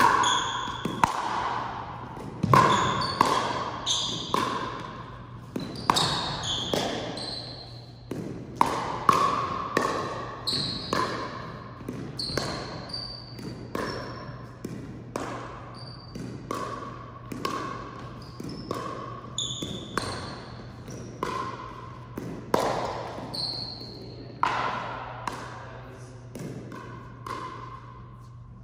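Pickleball doubles rally: a long run of sharp paddle strikes and ball bounces, about one a second and sometimes quicker, each with a short ringing ping.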